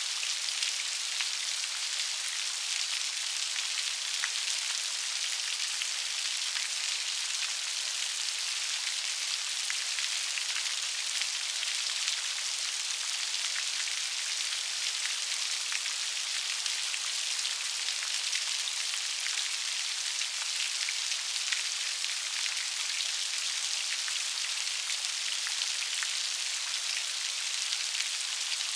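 Steady rain, a dense hiss of many small raindrops ticking on a surface, with no let-up.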